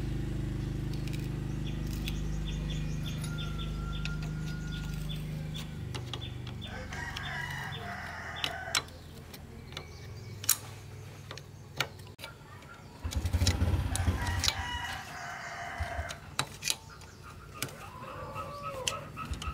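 A rooster crowing several times, with sharp clicks and knocks in between. A steady low hum runs under the first six seconds, then stops.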